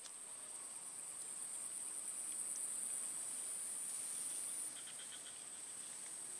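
Insects trilling in a continuous high-pitched drone, easing off a little about three-quarters of the way through.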